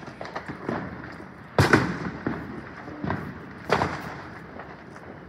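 Fireworks going off close by: a string of sharp bangs, the loudest about one and a half seconds in and again near four seconds, with smaller pops and crackles between them.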